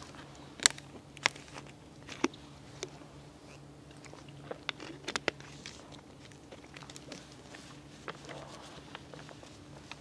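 Quiet room with a steady low hum and scattered sharp clicks and knocks. The loudest come about a second in, and there is a cluster around five seconds in.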